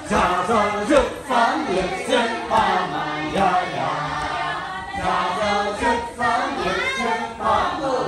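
A group of voices singing together in a choir, unaccompanied.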